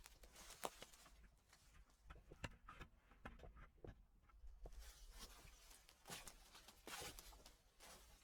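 Footsteps crunching and rustling through dry fallen leaves, a quiet crackle of clicks, with a lull a few seconds in before the steps pick up again.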